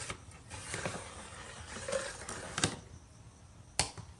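Magnetic-tipped extension tool scraping and clicking about inside a drain pan of used motorcycle oil while fishing for the drain plug: soft rustling with a few sharp clicks, the loudest near the end.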